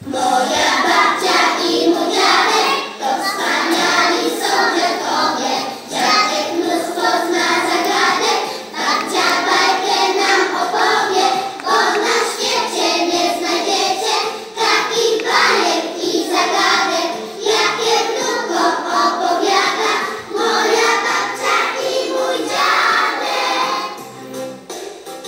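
A class of young children singing a song together in chorus.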